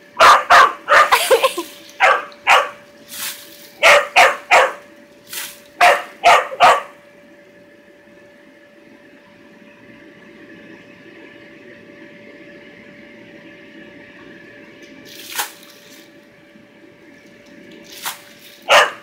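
Small dog barking: a quick run of sharp barks over the first several seconds, then a long pause, then a single bark and two more near the end. A steady hum runs underneath.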